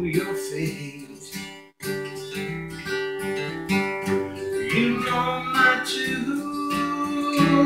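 Gibson Hummingbird acoustic guitar strummed in a steady rhythm, its chords ringing, with a brief break just under two seconds in.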